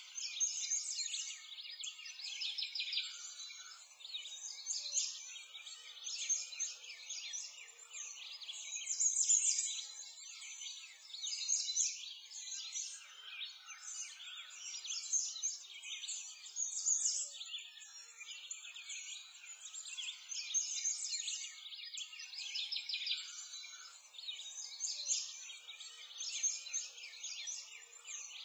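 A chorus of small songbirds chirping and trilling, swelling and fading every couple of seconds.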